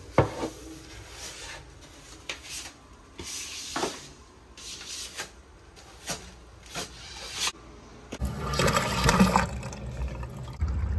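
A sharp knock, then a hand tool rubbing along the floor and the water heater's drain pan in short scraping strokes about a second apart, followed by a louder stretch of rustling near the end.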